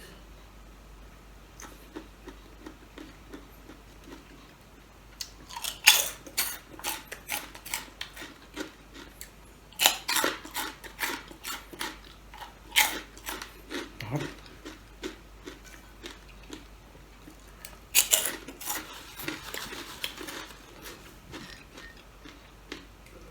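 Crunchy food being bitten and chewed close to the microphone: three bouts of loud crackling crunches, about six, ten and eighteen seconds in, with softer chewing between them.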